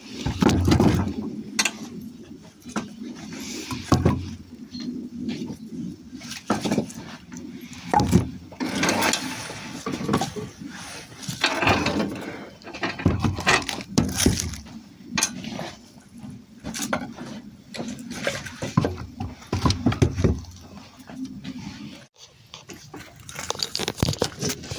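Irregular knocks, clunks and scraping of hard objects being handled and set down.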